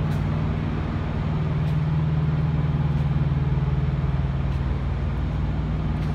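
Semi truck's diesel engine running steadily as the truck drives along: a constant low drone.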